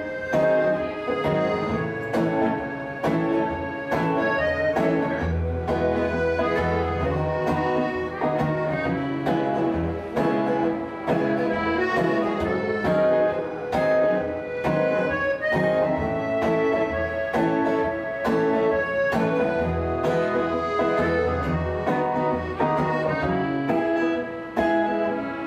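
Instrumental music: a button accordion plays a melody over held chords, with a plucked string instrument keeping a steady rhythm beneath it. There is no singing.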